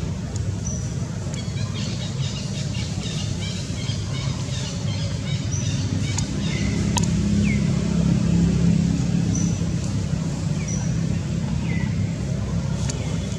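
Outdoor background sound: a steady low rumble that grows louder in the middle, with short high chirps every second or two.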